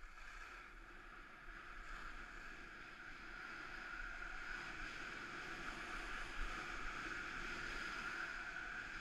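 Steady hiss of sliding down a groomed ski slope, snow rushing under the edges with air rushing past, growing louder as speed picks up.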